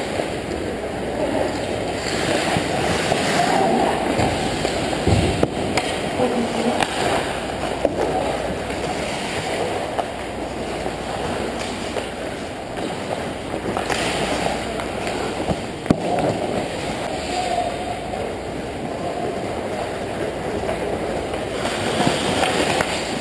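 Ice hockey play on the rink: skate blades scraping and carving on the ice, with a couple of sharp knocks of sticks and puck.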